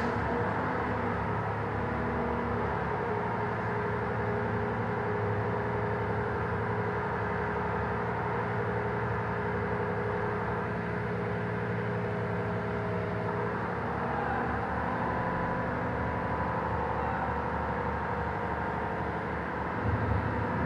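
Mack MRU front-end-loader garbage truck with a New Way Mammoth body, its diesel engine and hydraulics running steadily while the loader arms work a dumpster. A steady whining tone fades out about two-thirds of the way in, and the sound swells briefly near the end.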